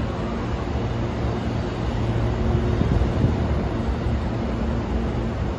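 Hankyu electric train moving along the platform: a steady rumble of wheels on rail with a low, even motor hum.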